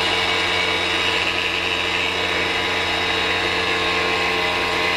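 Keda 56-63 195Kv brushless outrunner motor driving a propeller through exposed gears, running steadily at 25 volts with a high whine. It is braked by a cloth held against its spinning bell.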